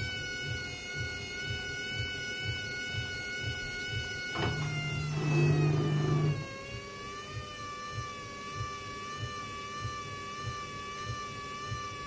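Hoover front-loading washing machine tumbling a soaked carpet: the drum motor whines steadily over regular low thuds, about three a second. About four seconds in, a loud low hum starts and lasts about two seconds while the motor whine drops in pitch.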